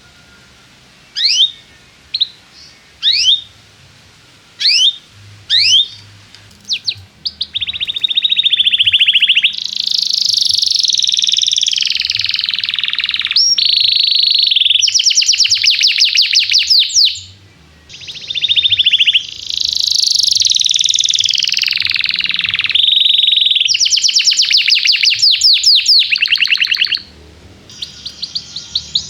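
Domestic canary giving single sharp rising "cuit" chirps about once a second, then breaking into full song: long runs of rapid trills and rolls with short pauses between phrases.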